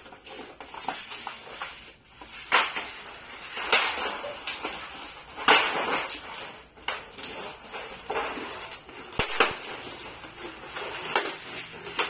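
Thin sheet metal of a folding stove pipe flexing, scraping and rattling in irregular strokes as it is rolled up by hand.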